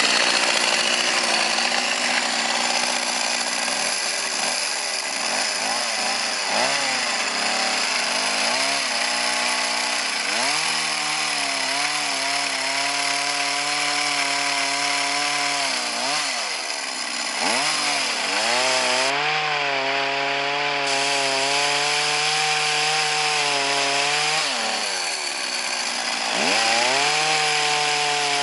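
Two-stroke chainsaw engine driving an earth-auger attachment, running steadily at high revs. Its pitch dips sharply and recovers several times, as the engine bogs under load and picks up again.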